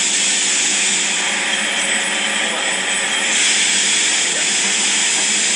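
Five-axis CNC machine running: a steady, loud hiss with a low hum beneath, and a thin high whine that comes in about two seconds in and stops a little after three seconds.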